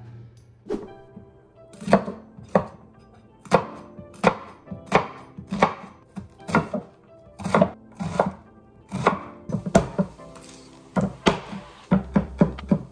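Chef's knife chopping a white onion on a wooden cutting board: a run of sharp knocks about one to two a second, coming faster near the end.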